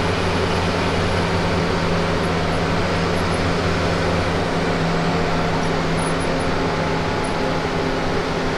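A bus driving at steady speed: a continuous low engine drone under even road and tyre noise.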